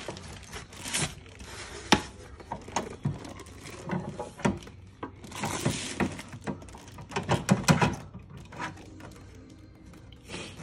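White plastic leg frame of a 4moms mamaRoo sleep bassinet being handled and fitted together: irregular knocks and clicks as a leg tube is pushed into its joint, the loudest about two seconds in and again near three quarters of the way through.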